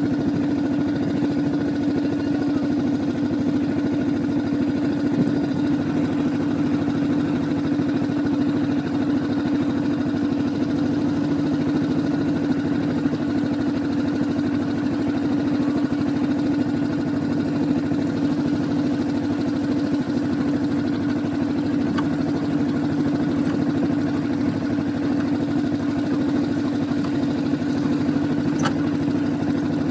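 ATV engine idling steadily, its pitch holding even with no revving.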